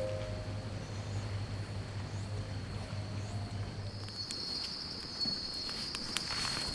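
Insects droning in a steady high-pitched whine that sets in about four seconds in, over a faint low hum.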